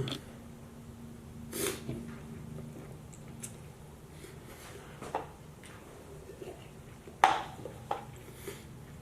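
Sounds of someone eating noodles fast: short breaths and sniffs, and a few light clinks and scrapes of utensils on a plate. The loudest is a sharp clack about seven seconds in.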